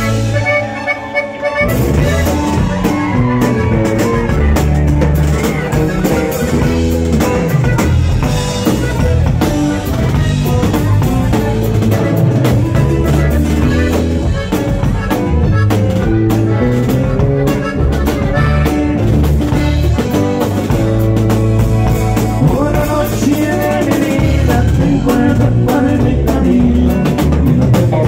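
Norteño band playing live: diatonic button accordion with electric bass and drum kit. The full band comes in about two seconds in after a sparser opening.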